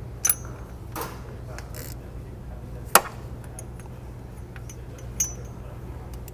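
Hand ratchet and socket clicking and knocking on metal as the new water pump's 10 mm bolts are given a gentle snug. A few sharp, scattered clicks, the loudest about three seconds in, over a steady low hum.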